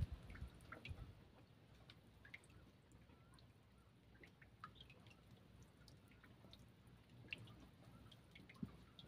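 Near silence with faint, scattered drips and small water splashes coming at irregular moments.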